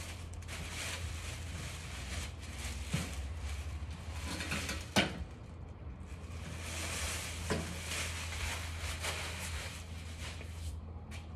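Clear plastic wrapping crinkling and rustling as it is pulled off a portable gas grill, with a few sharp knocks, the loudest about five seconds in.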